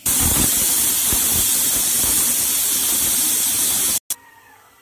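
Pressure cooker whistling: steam jets from the weight valve on the lid in a loud, steady hiss that cuts off suddenly about four seconds in. It is one of the 2 to 3 whistles used to time the chicken cooking under pressure.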